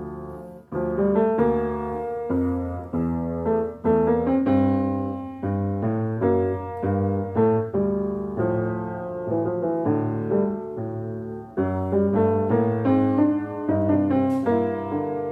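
Piano music: chords and single notes struck one after another, each fading after it sounds, with a brief break about half a second in.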